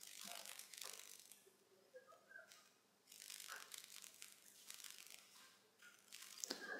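Near silence, with faint rustling noise that comes and goes.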